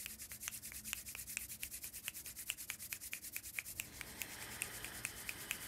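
Body-percussion thunderstorm effects: quick, even clicks of snapping fingers imitating rain over hands rubbed together fast imitating rustling trees. About four seconds in, a hiss of breath blown hard through pursed lips joins in as the wind.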